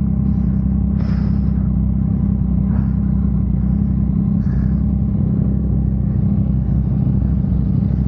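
Motorcycle engine running steadily while riding, a constant low rumble with no revving up or down.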